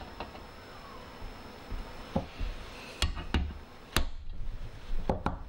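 Hammer striking a centre punch held on a drilled-out screw in an intercooler's mounting tab: a handful of irregular, sharp metallic taps, the hardest about three and four seconds in.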